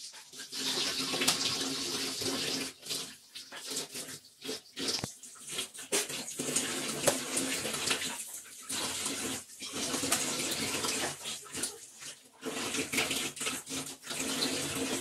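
Kitchen tap running into a stainless steel sink while raw chicken thighs are rinsed by hand under the stream. The splashing is uneven, with short breaks where the flow is interrupted.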